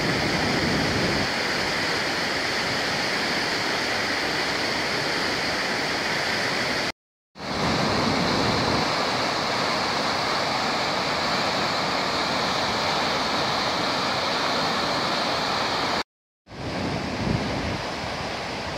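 Swollen, fast brown river in spate after heavy rain, its water churning and foaming in white-water standing waves with a steady, even rushing sound. Twice it breaks off for a moment of silence where one clip ends and the next begins.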